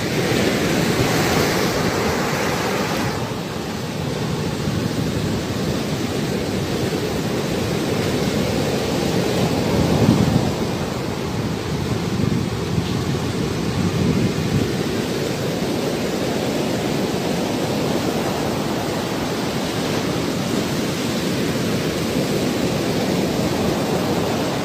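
Ocean surf breaking on a sandy beach, a steady rushing noise with some wind on the microphone. It is brighter and hissier for the first three seconds, with a louder low surge about ten seconds in.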